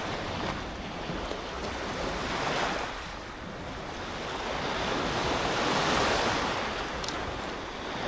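Sea waves washing onto the shore, swelling about two and a half seconds in and again around six seconds, with some wind noise on the microphone.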